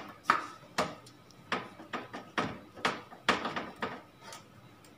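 Screwdriver driving screws into a steel PC case and motherboard: irregular metallic clicks and short scrapes, about two or three a second.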